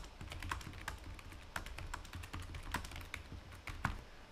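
Typing on a computer keyboard: a quick, uneven run of keystroke clicks, with a low steady hum underneath.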